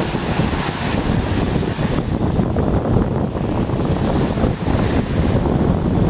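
Small sea waves breaking and washing up a sandy shore, with wind buffeting the microphone in a steady low rumble.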